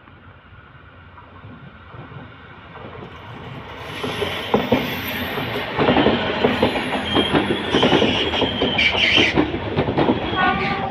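Renfe 470-series electric multiple unit approaching and then passing close by, growing louder, its wheels clattering over rail joints. Short high wheel squeals come through the middle as it runs through the curve.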